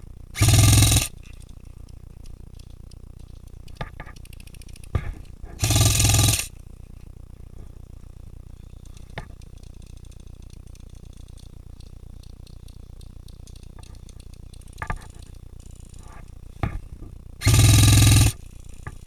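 Electric airsoft rifle (AEG) firing three short full-auto bursts, each under a second, with its gearbox cycling rapidly: one about half a second in, one about six seconds in and one near the end. A few faint single clicks and knocks fall in between.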